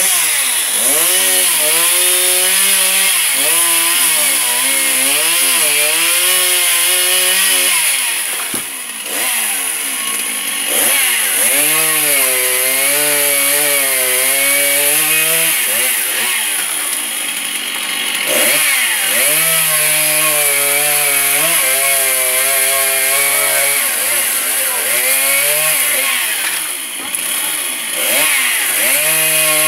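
Two-stroke petrol chainsaw cutting through walnut tree limbs at high revs. Its engine pitch sags under load and climbs again over and over, and it drops back toward idle a few times between cuts.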